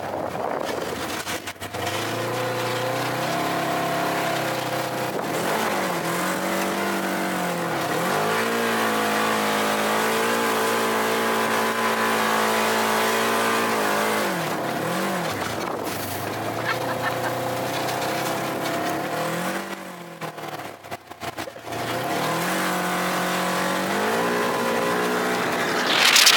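Polaris RZR 900 side-by-side's parallel-twin engine revving hard and holding high revs under full throttle, its pitch falling off and climbing again several times, over a steady rush of wind and tyres churning loose dirt. A loud rushing burst comes right at the end.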